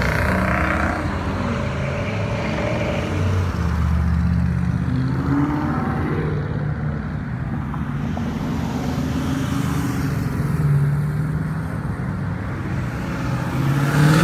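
Cars driving past one after another, their engines running low with the pitch rising now and then as they accelerate away.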